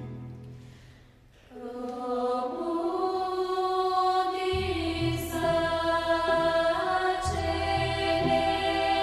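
Background music: a choir singing long held chords, starting about a second and a half in after a brief fade, with a low bass note entering about halfway through.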